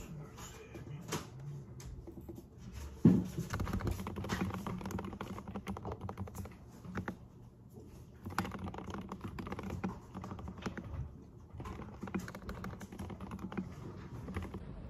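Typing on a mechanical computer keyboard: quick, uneven runs of key clicks with short pauses. A single heavier thump about three seconds in.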